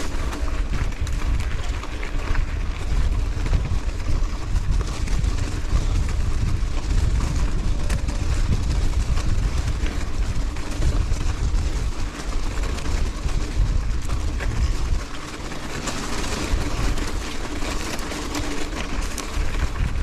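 Mountain bike rolling over rocks and gravel, with wind buffeting the microphone as a heavy low rumble that eases a little about fifteen seconds in.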